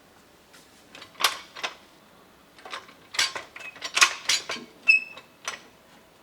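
A run of sharp clinks and knocks from tools and metal parts being handled, about a dozen in irregular clusters. One strike near the end leaves a brief, clear metallic ring.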